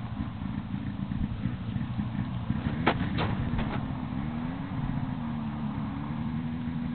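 Wind buffeting a helmet-mounted microphone in a steady low rumble as a paraglider pilot is towed across the ice, with a few sharp clicks about three seconds in. From the middle on, a faint engine note from the distant towing snowmobile rises slightly and then holds steady.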